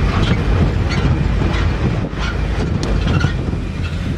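Vehicle noise: a loud, steady low rumble of engine and road, with scattered small clicks and rattles.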